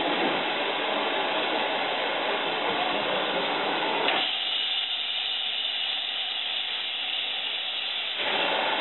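Steam hissing from LMS Fowler Class 3F 0-6-0 tank engine 47324 as it stands at a platform: a steady hiss begins about four seconds in and stops sharply about four seconds later, with steam venting low at the front of the engine. Before it there is a steady rushing noise.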